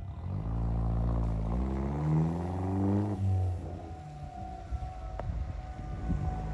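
A vehicle engine revving up as it accelerates hard for about three seconds, then easing off. A civil-defense tornado warning siren sounds steadily underneath and is heard more clearly once the engine drops back.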